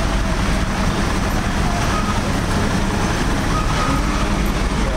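Fire truck's engine running steadily, a heavy steady rumble under a dense rushing noise.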